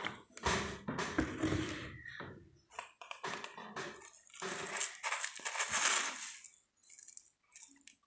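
Water poured from a plastic bottle into a plastic cup for the first couple of seconds, then a plastic spoon scraping and scooping coffee powder in a paper cup, with small clicks and clinks.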